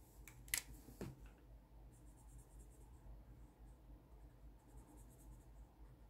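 Faint scratching of a Sharpie marker coloring in on a paper sheet, in a few short spells of strokes, after a few light clicks in the first second.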